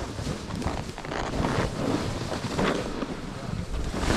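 Wind rushing over the microphone as a snowboard slides through snow, its edge scraping the snow in short repeated surges.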